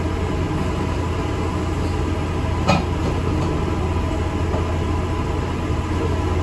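ADL Enviro 400 MMC double-decker bus under way, heard from inside: a steady low rumble of engine and road noise, with one short clack about two and a half seconds in.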